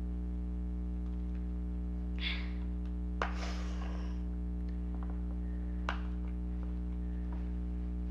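A steady low electrical hum, with a few light clicks and short scraping noises from handling the toy's small plastic parts and screws during reassembly.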